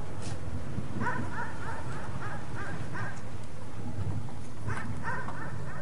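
A dog barking in quick runs of short, high yelps, a few times over, over a steady low rumble.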